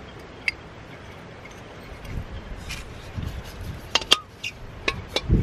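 Metal clicks and clinks of a folding camp-stove burner being opened out and screwed onto a butane-propane gas canister, a few sharp ticks with several close together near the end.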